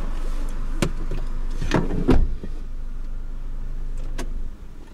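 Car running while parked, heard from inside the cabin, with a few sharp clicks and a heavier thump about two seconds in. The steady running stops about four and a half seconds in, as when the engine is switched off.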